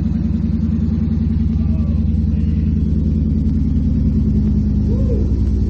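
Car engine running steadily with its mufflers cut off, the open exhaust giving a loud, low, even note.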